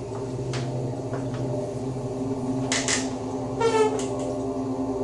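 A steady low drone, with a few light knocks and a brief falling squeak a little past the middle.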